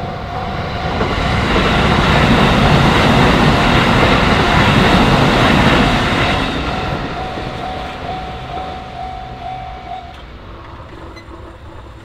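Shin-Keisei electric commuter train passing over a level crossing, its running noise swelling, staying loud for several seconds, then fading as it goes by. Behind it the crossing's electronic warning bell rings a steady repeated tone, which stops about ten seconds in as the crossing clears.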